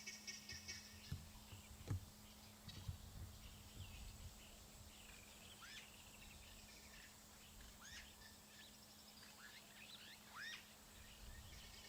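Helmeted guineafowls giving harsh, rapid rattling alarm calls at the start, then faint scattered bird chirps and short sliding calls, all quiet.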